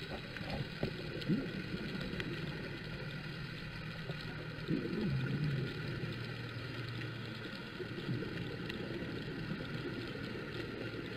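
Boat engine running steadily with a constant hum, and a few short sliding sounds about a second in and near the middle.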